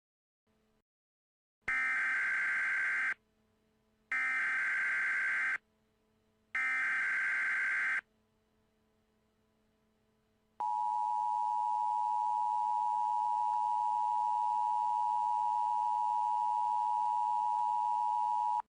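Emergency Alert System broadcast signal: three short bursts of warbling SAME header data, each about a second and a half long with a pause between, then the steady two-tone EAS attention signal held for about eight seconds. Together they announce an incoming emergency alert message.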